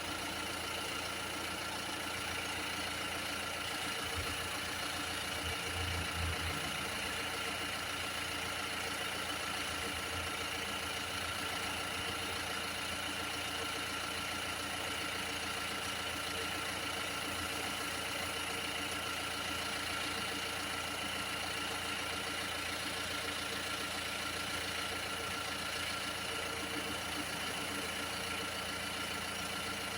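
Mini F60 diesel engine idling steadily, with a steady high whine over it.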